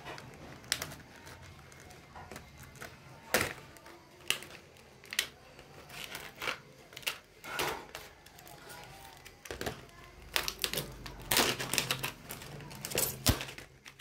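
Irregular sharp clicks and crinkles of a plastic blister pack and cardboard doll box being cut with scissors and pried loose to free a tray of doll accessories.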